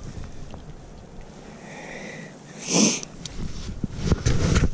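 A short, sharp sniff of breath close to the microphone about three seconds in, followed by scattered low knocks and bumps of hands handling the fish and rod near the camera, thickest near the end.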